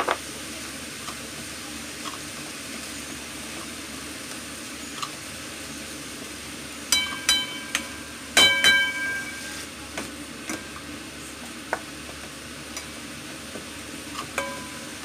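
Minced pork and beef with onion frying in a pan, a steady low sizzle under the scraping of a plastic spatula stirring it. A few sharp knocks of the spatula against the pan ring briefly about seven and eight and a half seconds in, with lighter taps near the end.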